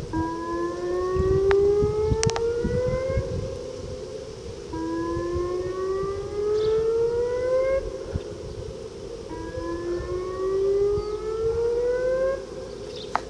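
Outdoor tornado warning siren sounding its whoop signal: a rising wail that climbs for about three seconds, breaks off and starts again about every four and a half seconds. A steadier siren tone from other sirens across town runs beneath it.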